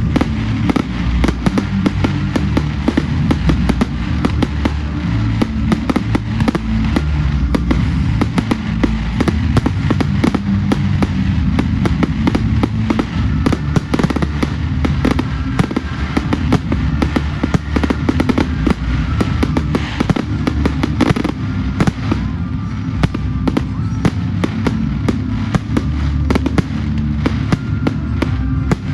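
Fireworks display going off continuously: rapid, dense bangs and crackles over a low rumble, with music playing underneath.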